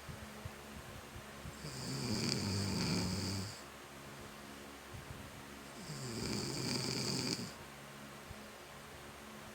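A person snoring: two long, rattling snores about four seconds apart, with quiet breathing between them.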